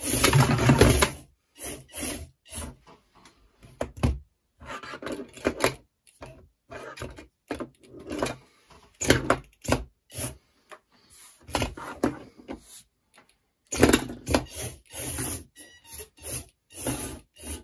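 4WD antweight flipper robot driving in short stop-start bursts, its wheels and plastic body scraping and knocking on a wooden tabletop as it pushes into another small robot.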